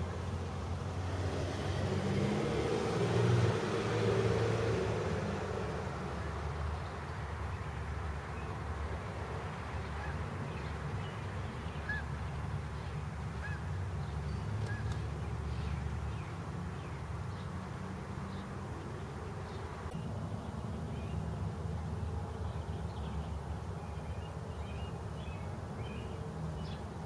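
Outdoor background noise: a steady low rumble that swells and fades in the first few seconds, with a few faint short chirps later on.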